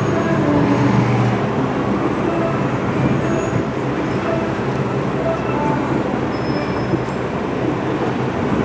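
Steady vehicle traffic noise with a low hum, continuous and fairly loud.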